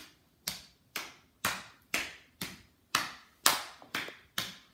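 A hand slapping a thigh to keep a steady beat, about two slaps a second, with a few quicker ones near the end.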